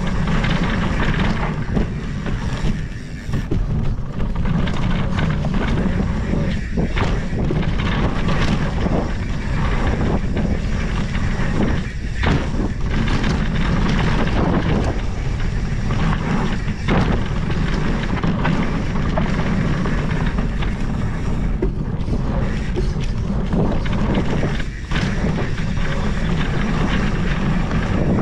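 Mountain bike riding a dirt singletrack: knobby tyres rolling over packed dirt, with steady wind rumble on the bike-mounted microphone and scattered knocks as the bike hits bumps.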